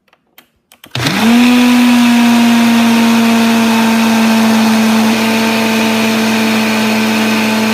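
A personal single-serve blender starting up about a second in after a few faint clicks, quickly rising to full speed and running steadily at a fixed pitch while it blends milk and M&Ms.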